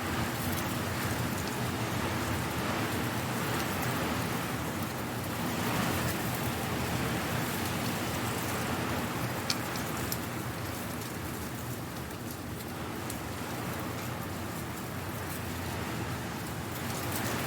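Dry leaves rustling and skittering in strong wind, a steady rain-like hiss that swells in gusts about six seconds in and again near the end, with one sharp tick about halfway through.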